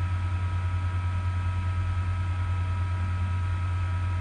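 Steady low electrical hum with an even hiss and a few faint steady high tones: the background noise of the recording, with nothing else happening.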